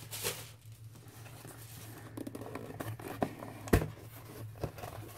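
Hands handling a white cardboard mailer box, fingers tapping and scraping on the card as the lid is pried open, with a sharp knock about three-quarters of the way in.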